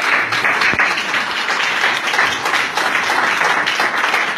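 Audience applauding: many people clapping together in a loud, steady round of applause.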